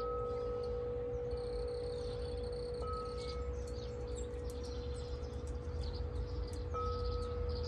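Tubular metal wind chimes ringing in the breeze: one deep, steady tone that hangs on, struck afresh about three seconds in and again near the end, each strike adding a brighter higher note.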